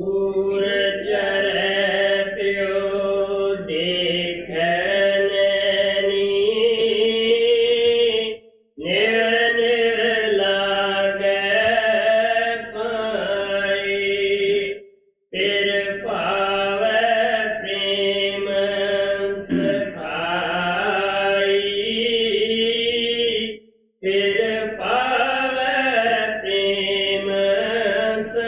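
A single voice chanting a devotional hymn verse in long, steadily held phrases, broken by three short pauses for breath.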